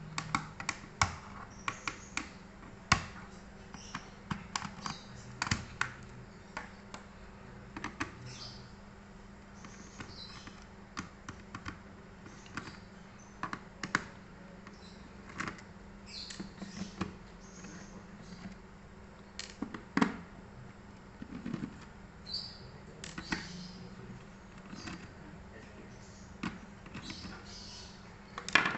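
Irregular clicks, taps and light knocks of hands working on an HP Mini 110 netbook, over a low steady hum.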